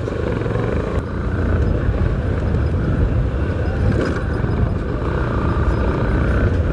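Motorcycle running along the road, its engine rumble mixed with wind rushing over the rider's microphone; the sound builds over the first second or two, then holds steady.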